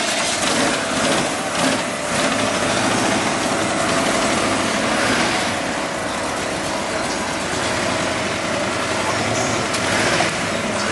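Classic pickup truck's engine idling steadily under a broad hiss.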